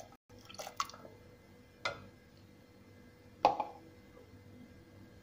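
Kitchen utensils and containers being handled while cooking: about five separate light knocks and clicks spread out, the loudest about three and a half seconds in.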